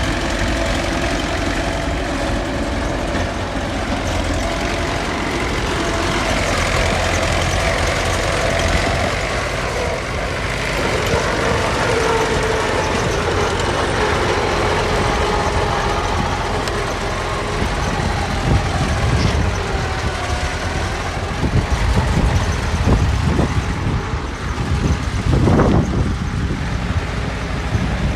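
Diesel engines of heavy earthmoving machinery running, their note rising and falling with load. Uneven low rumbling surges in the last third.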